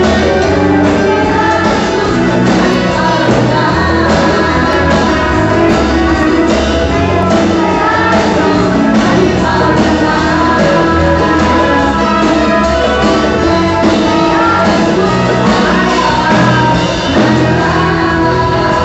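Live praise-and-worship band playing with a woman singing lead into a microphone, drums and bass keeping a steady beat.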